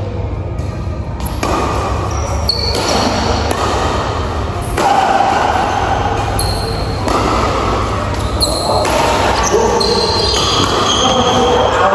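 Badminton doubles rally in a large hall: rackets striking the shuttlecock and shoes squeaking on the court, with players' voices.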